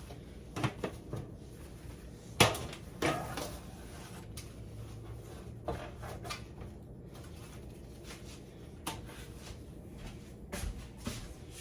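Scattered kitchen handling sounds: short knocks and clicks of dishes, utensils or cupboards. The sharpest knock comes about two and a half seconds in, followed by a brief clatter.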